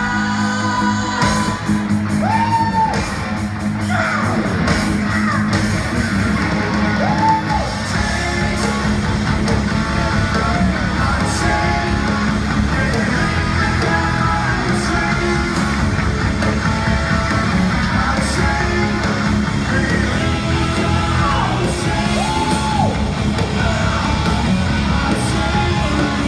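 Live hard-rock band playing full volume in a large arena: electric guitar, bass and drums, heard from within the audience. The singer lets out a few short wailing yells.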